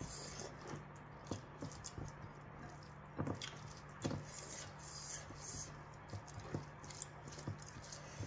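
Close-up eating sounds: chewing and lip smacks mixed with fingers squishing and scooping food against a ceramic bowl, in irregular soft clicks and wet squishes, a little louder about three and four seconds in.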